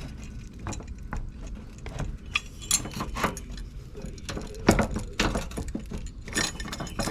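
Irregular metallic clinks and knocks of hand tools and bolt hardware working on a truck's bumper bracket, with a sharper knock about two-thirds of the way through.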